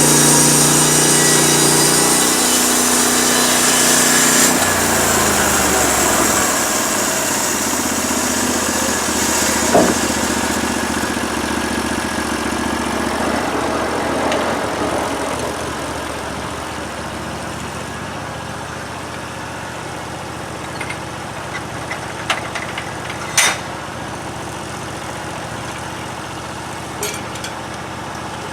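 A portable band sawmill's engine runs steadily, then winds down with falling pitch about four and a half seconds in. A whirring rush tapers off over the next ten seconds or so, and a few light knocks follow near the end.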